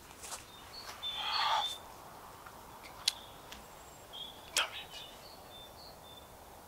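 Garden ambience with small birds chirping in short high notes, a brief rustle about a second in, and two sharp clicks near the middle.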